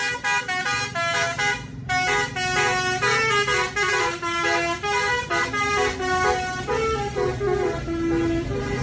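Basuri bus horn, a multi-trumpet musical air horn, playing a quick melody of short pitched notes, with a brief break just before two seconds in. A low rumble runs underneath.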